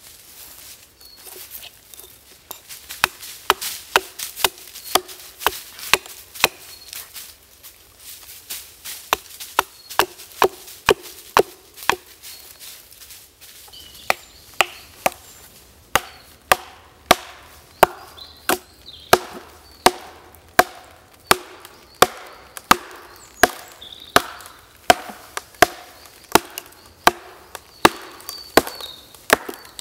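Axe chopping into a log in quick, regular strokes, about two a second, each a sharp woody knock; the chopping pauses for a few seconds near the middle and then resumes at the same pace.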